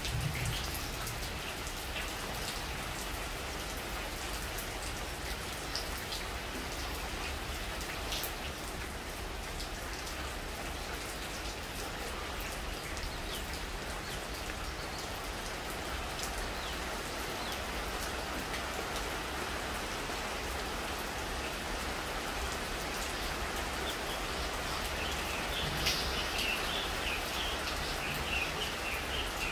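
Steady rain falling on dense leafy trees, an even hiss of drops pattering on the leaves.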